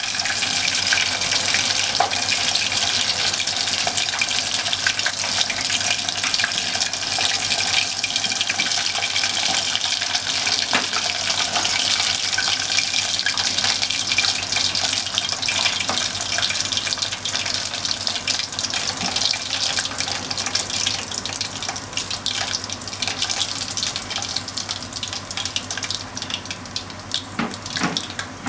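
Bone-in kalbi short ribs deep-frying in hot oil: a dense sizzle with many small crackles. It thins and grows quieter in the last several seconds as the pieces are lifted out of the oil.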